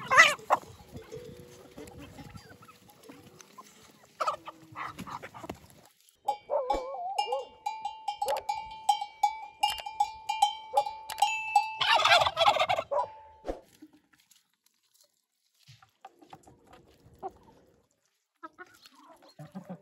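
Domestic turkeys gobbling in a mixed flock of farmyard fowl. A loud gobble comes right at the start and another about four seconds in. Then a long run of rapid, pulsing calls lasts about seven seconds and stops, leaving only faint scattered sounds near the end.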